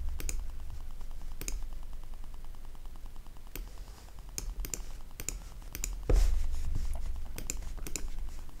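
Scattered computer keyboard and mouse clicks, about a dozen sharp clicks at irregular intervals, over a steady low hum. A soft low thump comes about six seconds in.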